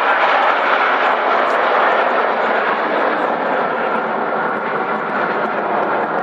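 Jet noise from a nine-ship formation of Frecce Tricolori Aermacchi MB-339 jet trainers passing overhead: a loud, steady rushing sound with no clear pitch.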